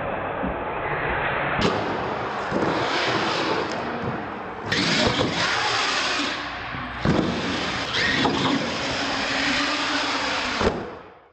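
A solid-axle R/C monster truck's electric motors whine and its tyres hiss as it runs and jumps ramps, with several sharp thuds from landings. The sound cuts off near the end.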